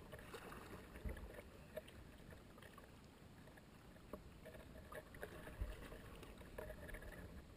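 Faint sounds of kayak paddling: paddle blades dipping and water dripping and lapping, with a couple of soft low thumps.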